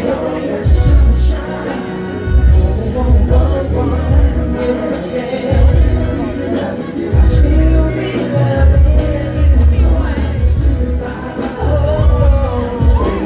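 Loud pop music with a heavy bass beat and a singing voice.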